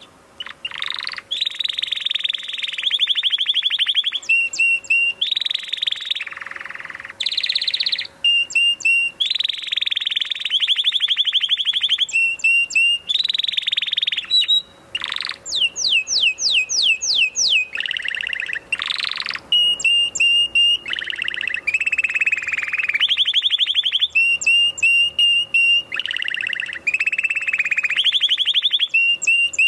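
Domestic canary singing a long song of rapid trills and rolls, phrase after phrase with brief breaks, starting about a second in.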